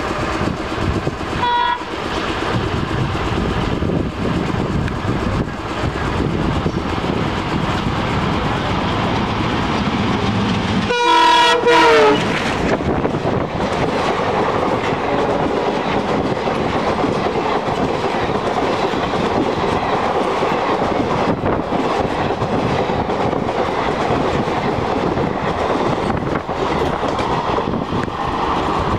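WDM3D diesel locomotive hauling a passenger train past at speed. Its horn gives a short toot about a second in and a loud blast of about a second around eleven seconds in, over the steady running noise and clatter of the coaches' wheels on the rail joints.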